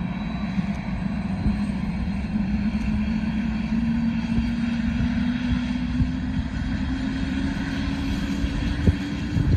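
Eurocopter AS350 B2 helicopter running on the ground: the single turboshaft engine and main rotor make a steady loud drone, with a low tone that slowly rises in pitch as the rotor winds up.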